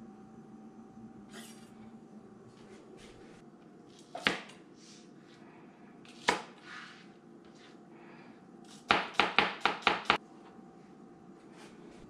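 Chef's knife chopping scallions on a cutting board: a single sharp knock about four seconds in, another about two seconds later, then a quick run of about seven chops around nine to ten seconds in.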